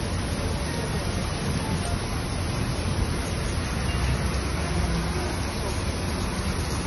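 Torrential rain and strong wind in a thunderstorm: a steady roar of rain with wind buffeting the microphone in a low rumble.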